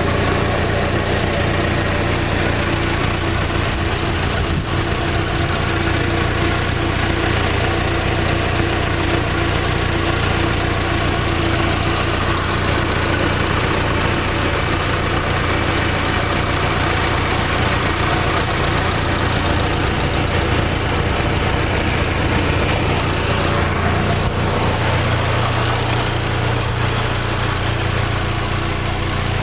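Fiat Fire 8-valve four-cylinder engine idling steadily, with a slight change in its note about 25 seconds in.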